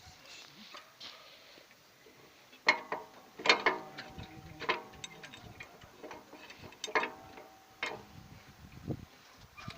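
About six sharp metallic knocks at irregular spacing, each followed by a brief ringing, the kind made when a metal object is struck or handled.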